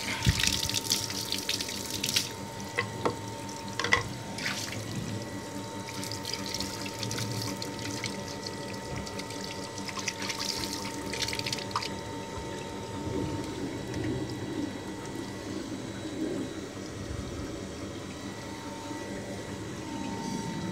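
Water flushing out of the drain of a stainless-steel water filter tank and running across a tiled floor, louder at the start and again about halfway through. A steady hum runs underneath.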